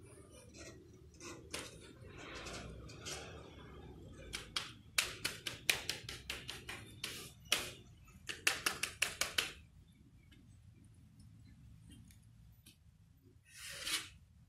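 Paint being worked onto a canvas by hand: quiet scuffing, then a quick run of sharp scrubbing strokes in the middle, several a second. A short hiss near the end.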